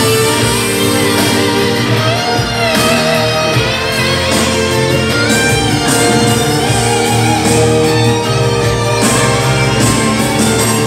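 Instrumental break of a song: a full band-style accompaniment with sustained chords, a bass line and a lead melody that bends in pitch, with no singing.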